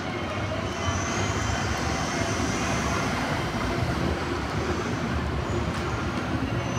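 Loud, steady rumble of street traffic, with an MTA articulated city bus among it, and a faint high whine that rises and falls from about a second in.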